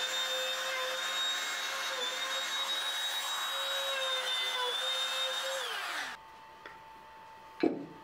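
Compact trim router running at a steady high whine while routing a shallow recess for bed-rail hardware in beech; about six seconds in its pitch drops and the sound stops. Near the end there is a single sharp knock over a faint hum.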